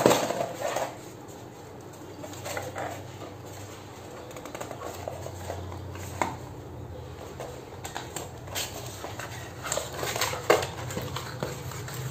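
A small cardboard box being handled and opened on a stone floor: scattered taps, scrapes and rustles of cardboard, with light clinks of bangles.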